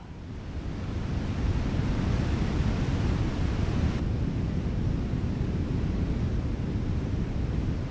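Waterfall: a steady rush of falling water, heaviest in the low end, swelling in over the first second or so.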